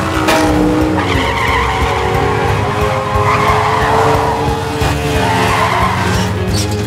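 Animated small off-road buggy's engine running, with its tyres skidding on the road: a wavering squeal over a steady engine drone.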